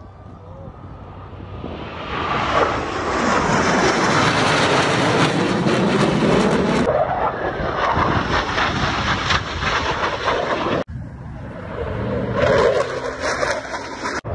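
Formation of Blue Angels F/A-18 Super Hornet jets making a low flyby: the jet roar builds over about two seconds, stays loud with the pitch dropping as they pass, then cuts out briefly near the end and comes back.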